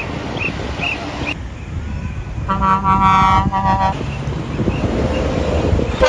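A vehicle horn gives one steady honk about two and a half seconds in, held for about a second and a half, over a steady background hiss.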